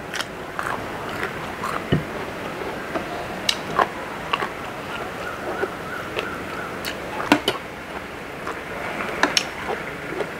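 Eating at a table: chewing, with a metal spoon and fork clinking and scraping on a plate in scattered short clicks, over steady background noise.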